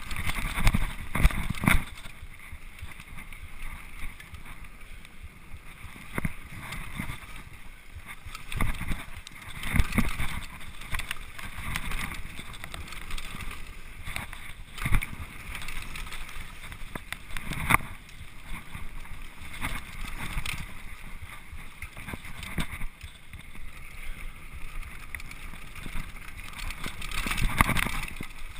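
Mountain bike rolling fast over a rough dirt track, with wind rushing across the bar-mounted camera's microphone. Knocks and rattles from the bike come through the mount as it hits bumps, several times.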